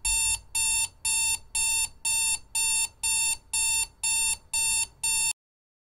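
Digital alarm clock beeping: an even electronic beep about twice a second, which cuts off suddenly about five seconds in.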